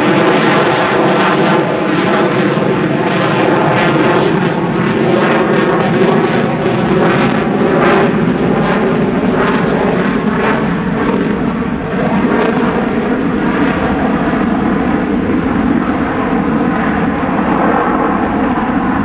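Lockheed Martin F-22 Raptor's twin Pratt & Whitney F119 turbofans in a loud, steady jet roar with a ragged crackle as the fighter flies its display. The crackle thins out in the last few seconds as the jet turns away.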